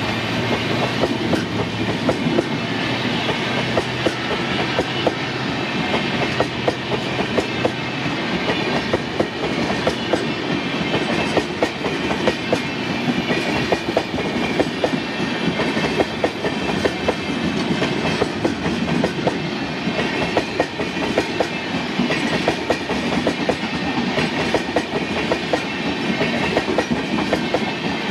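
LHB passenger coaches of an express train rolling past close by, their wheels clattering over the rail joints in a steady stream of clicks over a continuous rumble.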